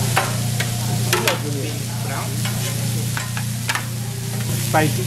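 Beef steaks sizzling on a hot steel teppanyaki griddle, with several sharp clicks of a metal spatula on the steel, the loudest near the end. A steady low hum runs underneath.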